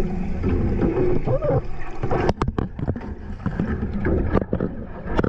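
Muffled underwater rumble of moving water, with a few sharp clicks about two seconds in and again just past four seconds.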